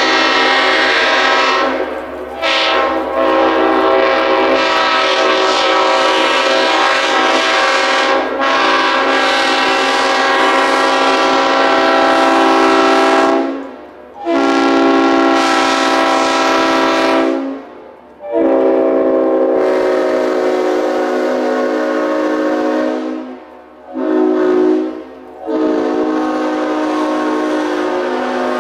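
Leslie RS5TFX five-chime locomotive air horn sounding a steady chord: one long blast of about thirteen seconds, then several shorter blasts with brief breaks between them.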